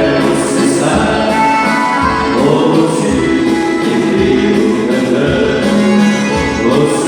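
Music with singing voices over a steady beat, about one bass hit a second.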